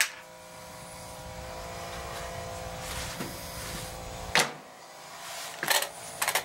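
Front-loading washing machine being handled: a low hum, then a loud knock about four and a half seconds in as the door is shut, after which the hum stops, then a quick run of clicks as the control dial is turned.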